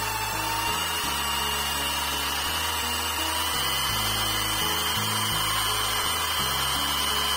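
Electric drill running steadily, driving a homemade paddle mixer through a bucket of paint, with a steady motor whine whose pitch sags briefly near the start. Background music with a bass line plays underneath.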